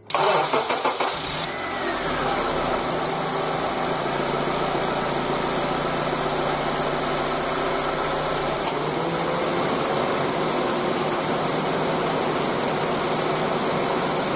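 Honda Accord engine being started: a brief crank, then it catches and idles steadily. The belt squeal is gone because the sticking automatic belt tensioner has been freed with lubricant and now holds the belt tight.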